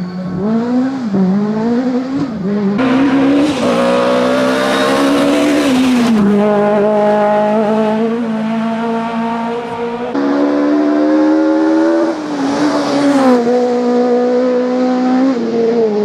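Citroën C2 S1600 rally car's 1.6-litre four-cylinder engine revving hard, its pitch rising and falling with quick blips as it brakes and accelerates through hairpins. Twice there is a stretch of loud hissing tyre squeal.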